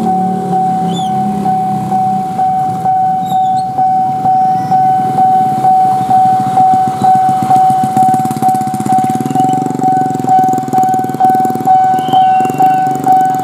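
Railway level-crossing warning bell ringing in a steady repeating pattern of one high tone, a little under two strokes a second, the strokes growing more pronounced in the second half. A low rumble swells underneath in the second half.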